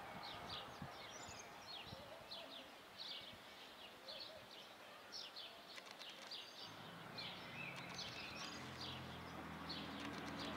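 Small birds chirping in short, repeated notes, several a second, over faint outdoor city background noise. A low steady engine hum joins about two-thirds of the way through.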